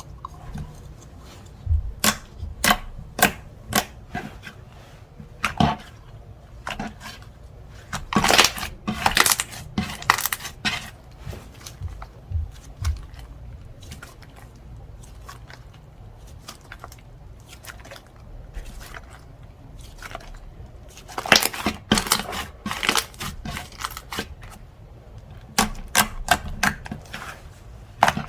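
Slime being squished, poked and stretched by hand, making sharp clicking pops and crackles that come in quick bursts, with quieter gaps between.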